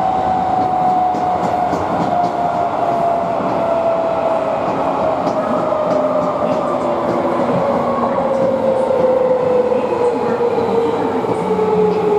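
Tokyo Metro 16000 series subway train, heard from inside the car: the whine of its Mitsubishi IGBT-VVVF inverter and permanent-magnet synchronous traction motors falls steadily in pitch as the train slows, over steady rolling noise with faint rail clicks.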